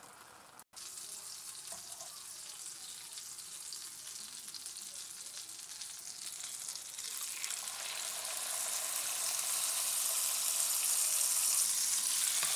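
Marinated chicken pieces sizzling in hot oil in a frying pan as they are laid in, the sizzle growing steadily louder and fuller from about halfway through.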